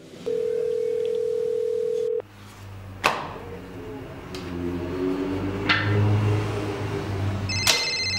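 A telephone dial tone, one steady pitch, sounds for about two seconds and stops abruptly. A few sharp knocks of knives on a wooden butcher's block follow, and near the end an electronic phone ringtone starts.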